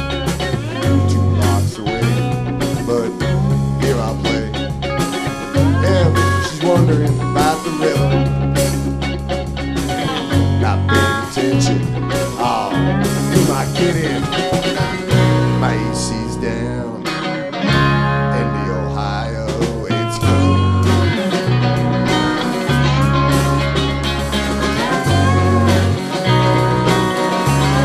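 Live blues-rock band playing an instrumental passage: electric bass, drum kit, electric guitar and lap steel guitar, with gliding slide notes from the steel over a repeating bass line.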